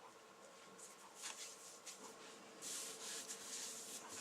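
Flour being spread by hand over a countertop: faint dry rubbing and brushing, with a longer, louder sweep a little past halfway.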